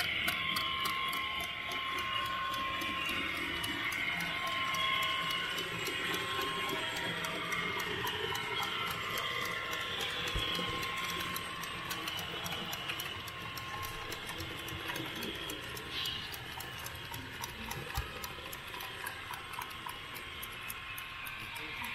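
Model train running along the track, heard from a camera riding on its cars: a steady rolling and rumbling sound with fast, regular clicking from the wheels, and a thin whine that comes and goes.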